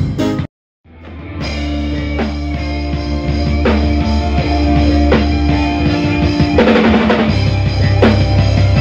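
A live band playing: a drum kit with kick and snare hits over sustained bass and electric guitar notes. The sound drops out for a moment about half a second in, then fades back up.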